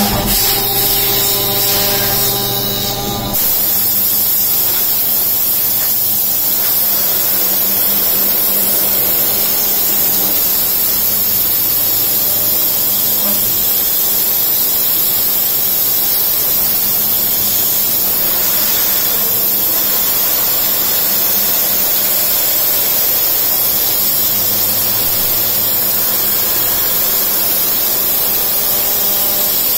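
Background music that stops abruptly about three seconds in, then a CNC milling machine cutting a white plastic plate with an end mill: a steady hissing whir of the spindle and cutter.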